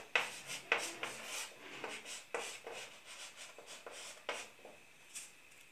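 Chalk writing on a blackboard: short, irregular scratching and tapping strokes as words are written by hand, thinning out over the last second or so.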